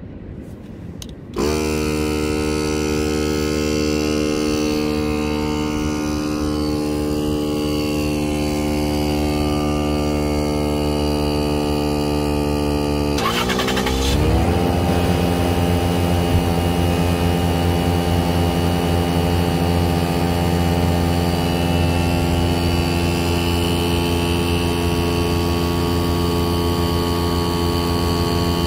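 Small 12-volt portable air compressor, powered from a vehicle battery, switching on about a second and a half in and running steadily as it pumps up a bait launcher's air chamber. Its pitch sinks slowly, and after a brief break about thirteen seconds in it runs on at a lower, steady pitch.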